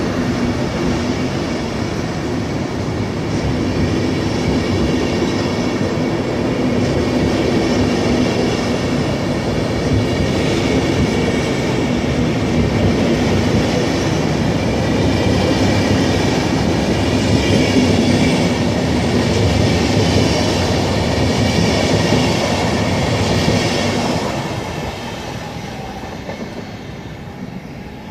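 Locomotive-hauled SBB passenger train rolling past close by: a steady rumble of steel wheels on rail with clatter from the coaches, the sound dropping away about 24 seconds in.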